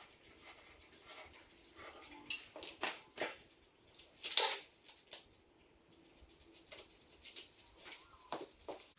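Handling noise of parts and packaging being moved: scattered light knocks, clicks and rustles, the loudest a longer rustle about four and a half seconds in.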